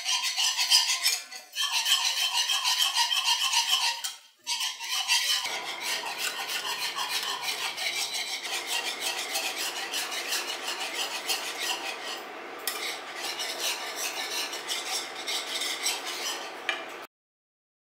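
Wire whisk stirring rapidly in a nonstick frying pan, its wires scraping and ticking against the pan as a milk-and-egg-yolk custard sauce thickens over heat. The whisking cuts off suddenly near the end.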